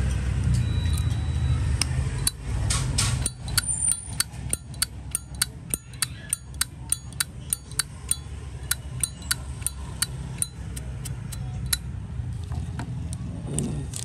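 Zippo lighter's lid clicking repeatedly, an even run of sharp metallic clicks at about two to three a second that stops near the end. A low rumble under it fades out about three seconds in.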